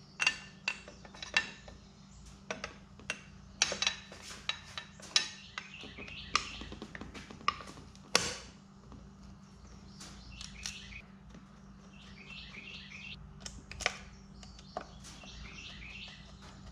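Sharp clicks and clinks at irregular intervals as the cover plate is worked back onto a boat's remote throttle-and-shift control box. Bird chirps in the background, in a run around the middle and again near the end.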